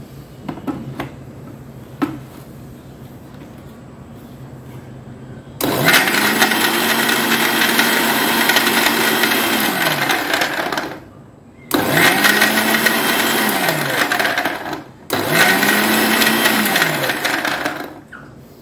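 Vision electric blender's motor running in three bursts, the first about five seconds and the next two about three each, blending dates, almonds and milk. The motor spins up at each start and winds down at each stop. Near the start come two sharp clicks as the steel jar is seated on the base.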